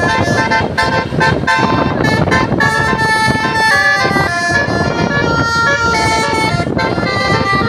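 Bus telolet horn, a basuri-type multi-tone horn, playing a tune of held notes that step up and down in pitch, over a steady low rumble.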